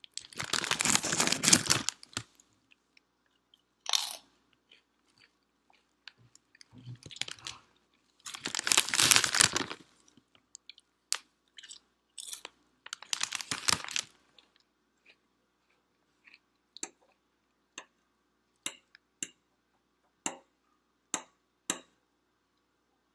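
Sour cream and onion Lay's potato chips crunched and chewed close to the microphone, in several loud bouts of crunching over the first fifteen seconds. After that the crunching gives way to quieter chewing with short, sharp mouth clicks.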